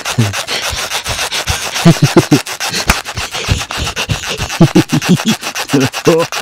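Vocal percussion made with the mouth: a fast, even run of breathy, scratchy strokes, about eight a second, with short low grunts mixed in.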